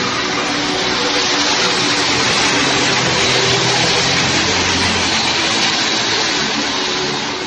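Street traffic on a wet road: a steady hiss with a low engine hum beneath it.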